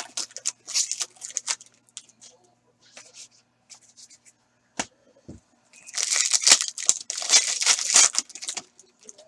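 Foil wrapper of a Panini Contenders hockey card pack being torn open and crinkled. Short spells of tearing and crinkling come at the start, then a longer, louder spell about six seconds in, with a single sharp click near five seconds.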